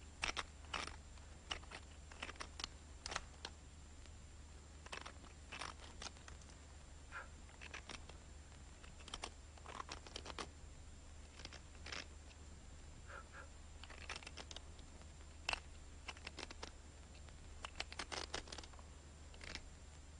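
A knife blade scraping and picking at a crumbling plaster wall in short, irregular strokes, digging out a bullet lodged in it.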